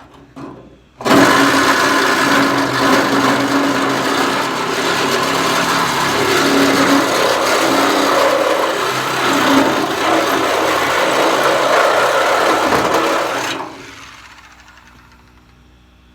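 A power cutting tool cuts through the steel of a Ford Ranger pickup bed: two brief blips, then from about a second in a loud, harsh cutting noise with a steady whine under it for about twelve seconds, which then fades as the tool winds down.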